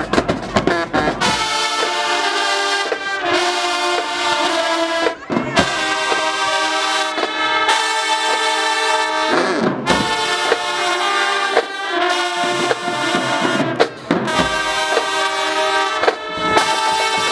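High school marching band playing in the stands: loud, sustained brass chords from trumpets, sousaphones and saxophones in short repeated phrases, each broken by a brief gap about every two seconds.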